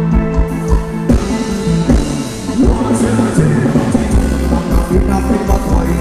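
Live band playing Thai ramwong dance music with a steady beat and held melody notes.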